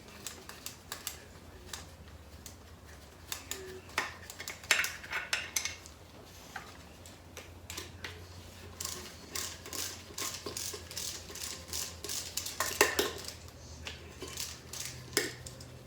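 Hand tools working bolts out of a Ford 5.0 V8's timing cover: runs of rapid metallic clicking, like a ratchet, mixed with clinks of metal on metal.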